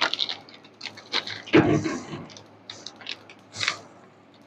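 Plastic sweet packet crinkling and crackling in the hands in short irregular bursts, with one louder bump about a second and a half in.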